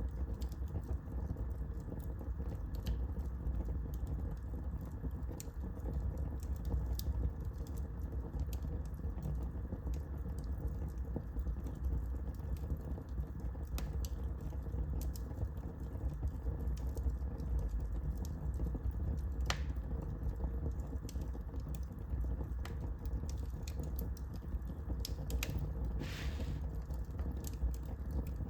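Wood fire burning in a fireplace: a steady low rumble of the flames with irregular crackles and snaps, and a couple of louder pops, about two-thirds of the way through and near the end.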